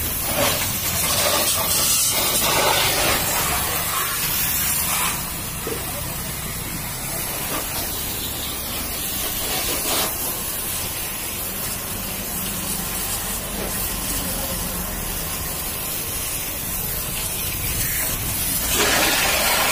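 High-pressure water jet from a pressure washer hitting a car's alloy wheel, tyre and wheel arch: a steady hiss of spray. It is louder for the first few seconds, drops slightly, and swells again near the end.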